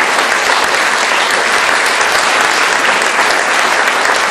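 Audience applauding steadily: a dense, even clapping from many hands.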